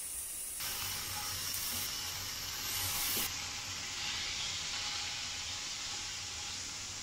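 Slices of kalbi (beef short rib) sizzling in a hot frying pan: a steady frying hiss that starts about half a second in.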